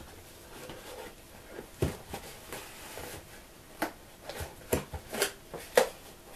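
Hands working at a toy's cardboard and plastic packaging: a handful of irregular sharp clicks, taps and crackles as the box is handled and opened.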